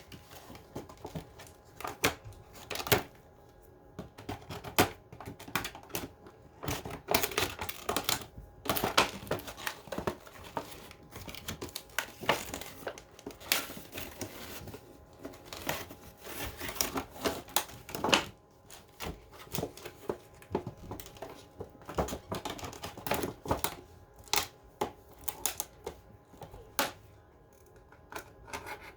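Cardboard box being cut open and handled: irregular clicks, scrapes and crinkles of cardboard and packaging, with a few sharper knocks.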